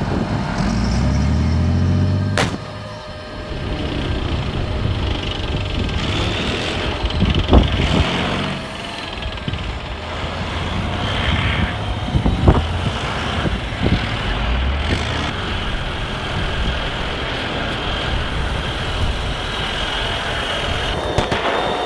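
Radio-controlled M1 Abrams model tank and model army truck driving over icy snow: a simulated engine sound rises in pitch at the start, over steady motor and track noise, with three sharp clicks spaced a few seconds apart.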